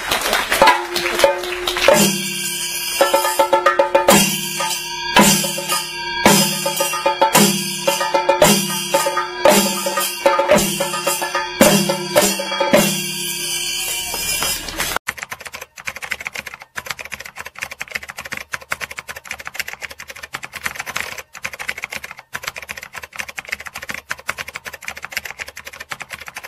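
Kerala chenda drums with ilathalam cymbals playing thayambaka, with strong strokes about once a second. About halfway through the drumming cuts off and is replaced by rapid, typewriter-like clicking.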